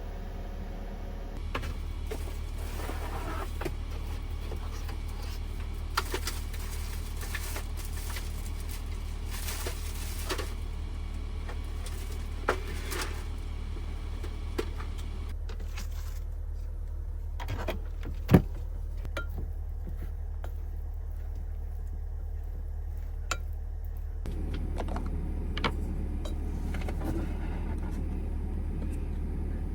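A steady low hum with scattered light clicks and knocks of things being handled; one sharper knock about 18 seconds in.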